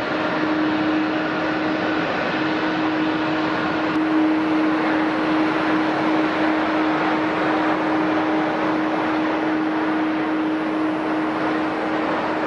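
Airliner engines running steadily at the airport: a constant hum over a broad rushing noise, with a fainter higher whine that fades about four seconds in.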